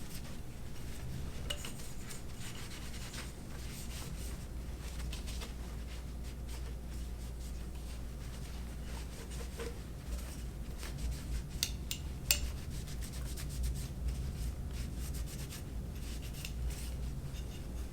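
An AR-15 lower receiver being rubbed and wiped down by hand during cleaning, a steady scuffing over a low hum, with a few light clicks of the parts being handled about two-thirds of the way through.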